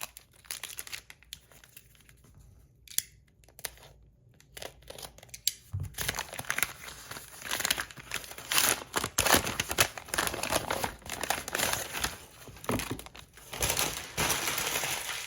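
Packaging being opened by hand: a few handling clicks, then from about six seconds in a long stretch of crinkling and tearing of wrapping.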